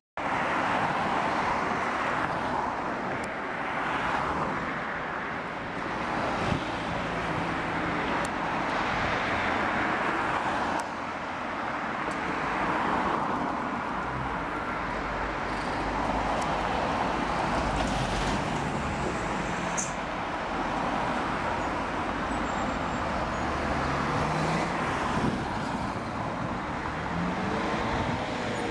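Road traffic: a steady stream of cars going past, the noise swelling and fading every few seconds as vehicles pass.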